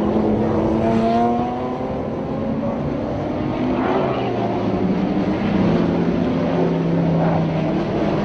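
Several Trans Am race cars' V8 engines running hard on track, overlapping, their pitch climbing and dropping as they accelerate and shift.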